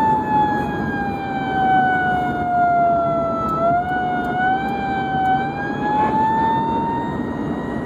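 Emergency vehicle siren sounding a single held tone that sags slowly lower in pitch over a few seconds and then climbs back up, over steady road and engine noise.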